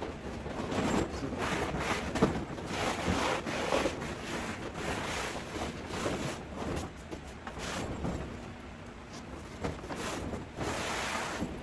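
Grow tent's heavy fabric rustling and crinkling as it is handled and flipped over, in irregular swells of noise with a few sharper knocks.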